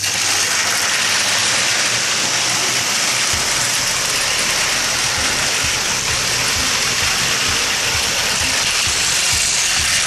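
Battery-powered Plarail toy train running on plastic track: a steady whirring of the small motor and gears, with a run of low clicks from about three seconds in.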